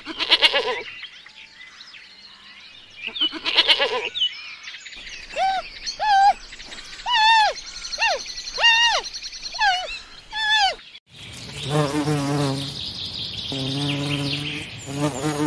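A sheep bleating twice, then a run of about seven short, high squeaky calls, each rising and falling in pitch. In the last few seconds a honeybee buzzes in a steady drone.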